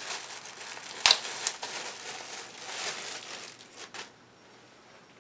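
Crinkling and rustling of packaging as a t-shirt is handled and taken out, with a sharp click about a second in; it dies away about four seconds in.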